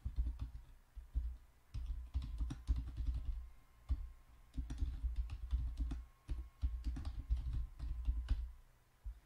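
Typing on a computer keyboard: keystrokes come in quick runs with short pauses between them, each press carrying a dull low thump.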